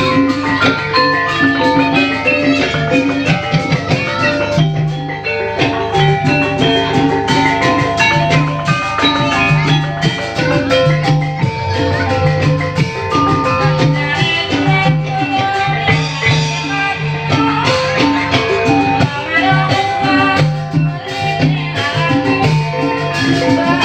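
Javanese percussion-ensemble music accompanying an ebeg horse-dance: tuned mallet instruments play quick runs of melodic notes over a steady, repeating drum pattern.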